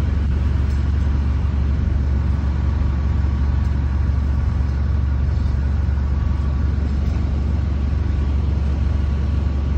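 Heavy work truck's diesel engine running steadily at a constant speed, a deep, even drone with no change in pitch.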